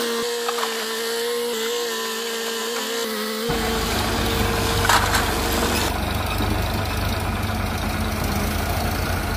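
Diesel machinery running. For the first three and a half seconds a Caterpillar mini excavator runs with a steady high whine over the engine. Then, at an abrupt change, a tractor's diesel engine takes over with a deeper low rumble as it pulls a loaded trolley, and a single clank comes about halfway.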